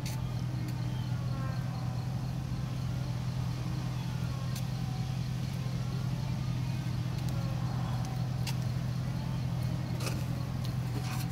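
A steady low engine hum, with faint short chirps and a few scattered clicks over it.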